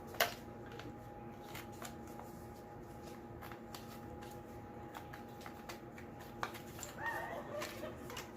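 A sharp metallic click about a quarter of a second in, then scattered light clicks and rattles as the timing chain, chain guide and bolts are handled and fitted by hand, over a steady hum.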